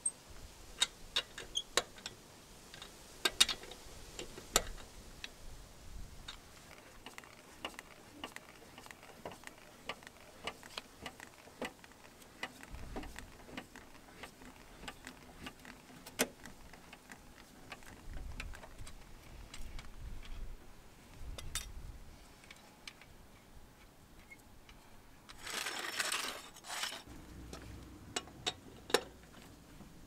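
Scattered sharp metallic clicks and taps of a wheel brace working the lug nuts on a steel space-saver spare wheel, and of a scissor jack's crank rod being turned, with a short scraping noise near the end.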